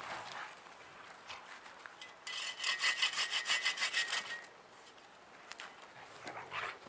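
Sven Saw, a folding triangular bow saw, cutting through a thin stick in a quick burst of back-and-forth strokes, about six a second. The strokes start about two seconds in and stop after about two seconds.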